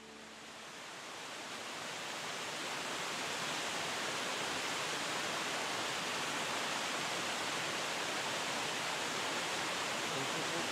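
Steady rush of water from a shallow rocky stream spilling over stones in small cascades, fading in over the first couple of seconds.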